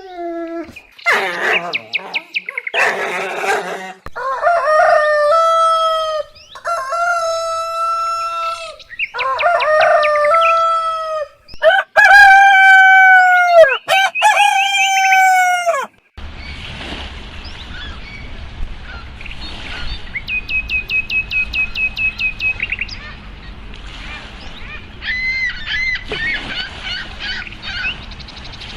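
Rooster crowing over and over, about five long crows in a row, each rising, holding, then dropping off. About halfway through it cuts suddenly to a quieter outdoor background with small birds chirping, including a short rapid trill.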